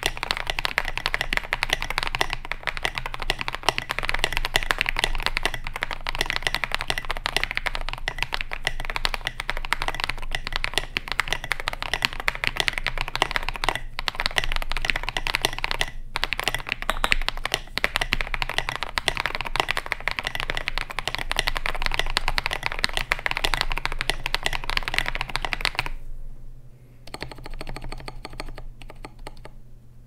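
Fast, continuous typing on a KBD67 Lite R2 mechanical keyboard with Akko Matcha Green switches, SA profile keycaps and a polycarbonate plate: a dense run of key clacks. Near the end the typing thins out and gets quieter.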